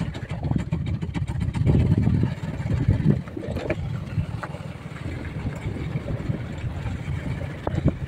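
Vehicle travelling over a rough gravel track, its engine and tyres making a rumble, with wind buffeting the microphone. The rumble swells about two and three seconds in.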